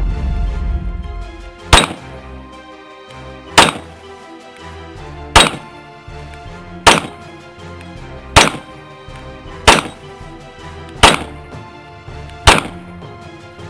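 CZ P-10 C pistol firing eight single shots at an even pace, about one every second and a half, cycling each round of cheap Tula ammo without a malfunction. Background music plays under the shots.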